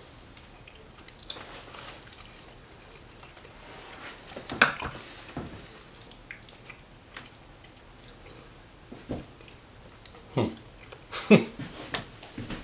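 A person chewing a mouthful of smoked turkey wing meat, with scattered wet lip smacks and clicks and a few sharper smacks near the end.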